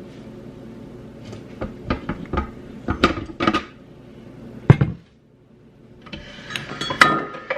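Kitchen utensils and dishes knocking and clinking: a run of sharp knocks, the loudest about five seconds in, then after a brief lull a clatter with a short ringing near the end, as cupcake batter is spooned into the pan.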